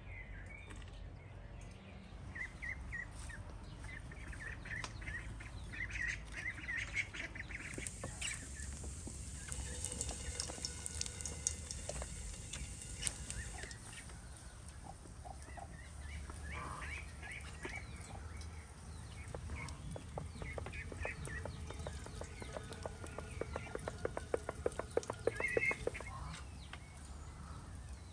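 Domestic fowl calling: ducks and chickens, with a fast run of repeated calls about three quarters of the way through. A spell of hissing about a third of the way in.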